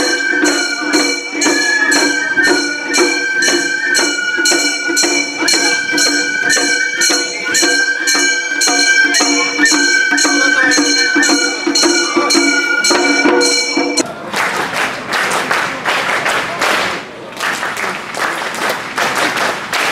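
Gion-bayashi festival music from the float: a flute melody over small hand gongs struck in a steady beat about twice a second. The music stops suddenly about 14 seconds in and the crowd applauds.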